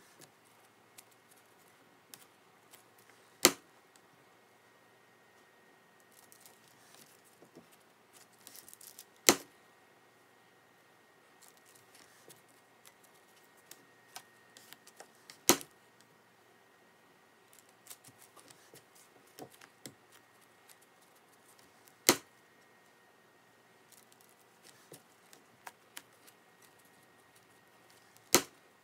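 Wire soap cutter slicing bars from a soap loaf: five sharp clacks about six seconds apart, one per cut, with soft scraping and sliding of the loaf on the cutter's plastic tray between them.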